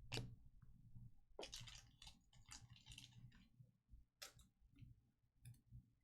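Faint, scattered clicks and rustles of trading cards being handled and flipped through, a few light handling noises a second or so apart.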